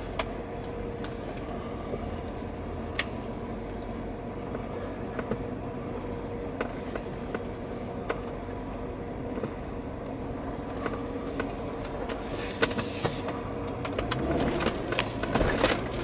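Road and engine noise heard inside a moving Jeep Cherokee's cabin: a steady low rumble with a faint steady hum and scattered light ticks, and a short hiss about twelve seconds in.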